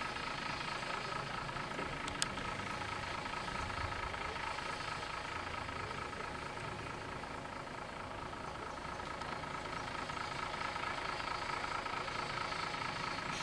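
Diesel engine of a stopped Tata bus idling steadily, with one sharp click about two seconds in.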